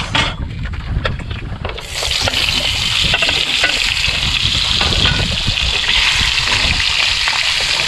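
Diced Spam hitting a hot oiled frying pan and starting to sizzle suddenly about two seconds in, then sizzling steadily.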